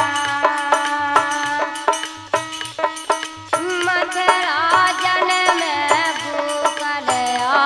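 Instrumental break in a tamura bhajan: a harmonium plays the melody over a steady drone, while a hand drum and clicking percussion keep a regular beat.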